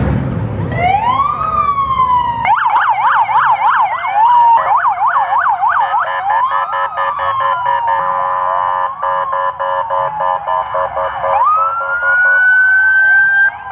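Police vehicle sirens sounding: a rising wail, then a fast yelp from about two and a half seconds in, slower wails and a stretch of pulsing steady tones, and a fresh rising wail near the end.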